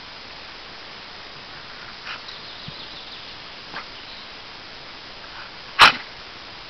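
A dog makes one short, loud sound about six seconds in, over a steady hiss, with a couple of fainter short sounds a few seconds earlier as the two dogs play and sniff at a tree's roots.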